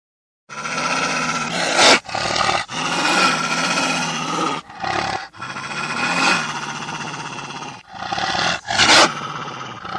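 Wolf growling in long, rough stretches broken by short pauses, starting about half a second in, loudest near 2 and 9 seconds.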